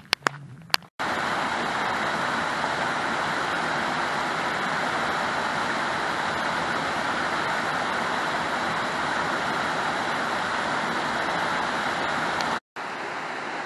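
Steady rush of a waterfall's falling water. It cuts off suddenly near the end and comes back quieter.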